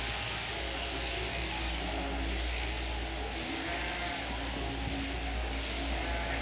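Sheep-shearing handpiece running steadily with a continuous buzz as it clips the fleece off a sheep.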